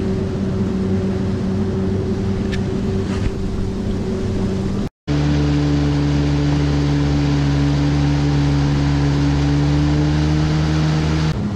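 Pontoon boat's outboard motor running steadily under way. About five seconds in there is a brief break, after which the engine runs on at a lower, steady pitch.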